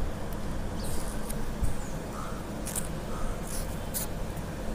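Low steady background hum with a few faint, brief sounds scattered through it, two of them short and about a second apart.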